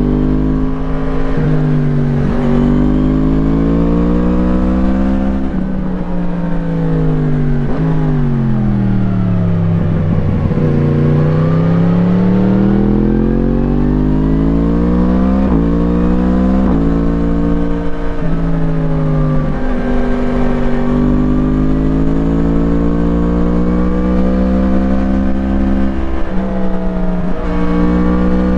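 2017 Yamaha MT-10's crossplane inline-four through an Akrapovič slip-on exhaust, heard onboard while riding hard: the engine pitch climbs under acceleration and drops sharply at each gear change. About a third of the way in it falls away slowly on the throttle off, then climbs again.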